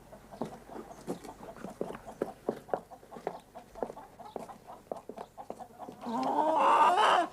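Hens clucking in a yard, with a steady scatter of short clucks. A louder, drawn-out sound comes near the end.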